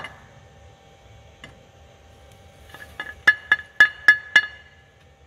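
A milled metal intake manifold knocked several times against the mill vise to shake off chips: a run of sharp metallic clinks about a quarter second apart, five of them loud, each with a brief ring, after a single click at the start.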